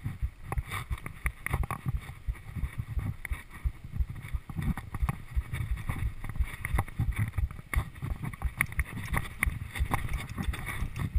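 Mountain bike rolling fast down a rough dirt trail, its tyres crunching over the ground and the bike rattling with irregular knocks over bumps. Low wind rumble on the microphone runs underneath.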